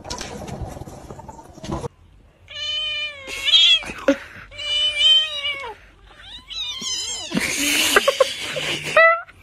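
A domestic cat yowling: about four long, drawn-out meows, each about a second long and bending in pitch, with a harsher, raspy stretch near the end.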